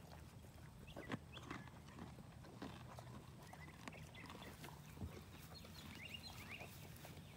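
Faint sounds of a horse eating grain from a feed pan: scattered soft crunches and clicks of chewing and its muzzle working in the pan.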